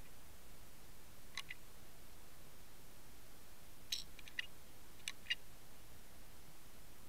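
Steady hiss from an underwater camera, with sharp clicks in small clusters: a pair about a second and a half in, three or four close together about four seconds in, and another pair about a second later.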